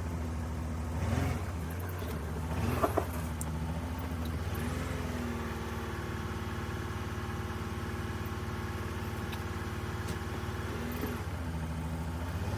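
Nissan Maxima engine running: idling, then raised to a steady higher speed for several seconds from about a third of the way in, dropping back to idle near the end.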